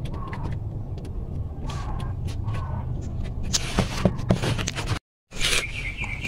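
Scattered clicks and scrapes of hands and tools working on bolts under a car, over a steady low hum. The scraping grows louder about four seconds in, and the sound cuts out for a moment about five seconds in.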